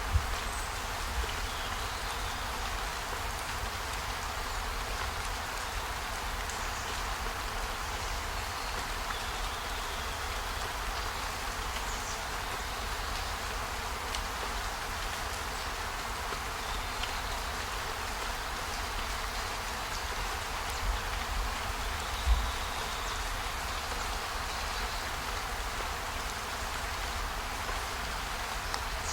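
Steady rain hiss over a low rumble, with a few faint high chirps and a couple of soft low thumps.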